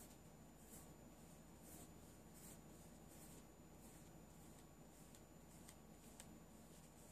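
Faint, soft scratching strokes of a flat paintbrush dry-brushing gesso across a paper index card, roughly one stroke a second, barely above room tone.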